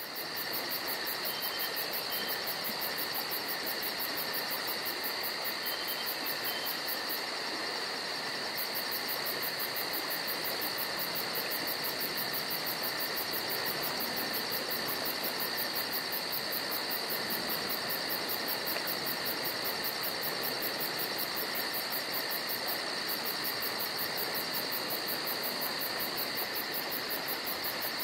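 Forest ambience: a steady, dense chorus of crickets and other insects chirring, with a very fast high-pitched pulsing over an even hiss.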